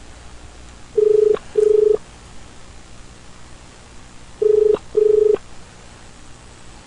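Telephone ringback tone heard on the calling line: two double rings ("bring bring"), each a pair of short buzzing tones, about three and a half seconds apart, over faint line hiss. The phone is ringing out unanswered at the other end.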